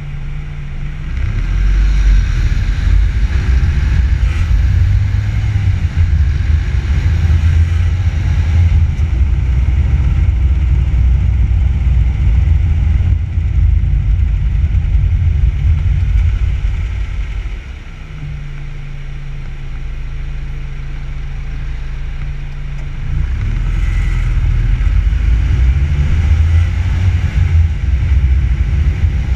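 Car heard from a microphone on its front bumper. The engine first hums steadily as if idling. About a second in the car pulls away into a loud low rumble of engine, tyres and wind. Just past the middle this eases back to a quieter steady engine hum for several seconds, then the loud rumble picks up again.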